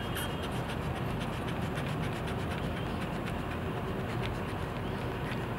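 Pencil scratching on paper in short, light strokes over a steady low background rumble.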